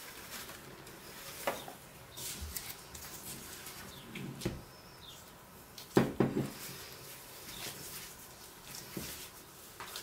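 Bread dough being handled on a floured worktop: scattered soft knocks and rustles, with a louder thud about six seconds in as the dough is tipped out of the glass bowl onto the table, then gloved hands kneading it.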